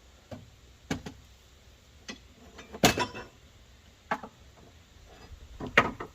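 Scattered sharp knocks and clicks, about six in all at irregular gaps, the loudest about three seconds in, from work on old nailed-down deck boards being pried up.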